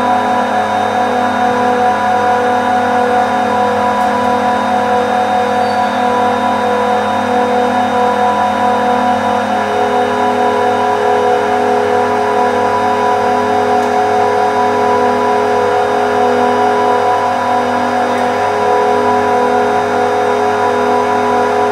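Rack of screw compressors running with a steady hum made of several held tones, some of them pulsing slowly and evenly; another tone joins about ten seconds in.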